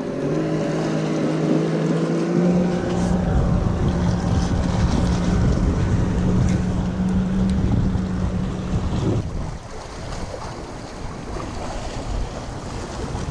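Motorboat engine running with a steady hum, mixed with wind buffeting the microphone. It cuts off abruptly about nine seconds in, leaving wind and water noise.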